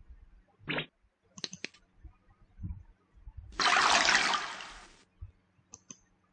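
A rushing water sound effect, about a second and a half long, played when the fish in the pond of an interactive lesson is clicked. A few short clicks come before it and one after.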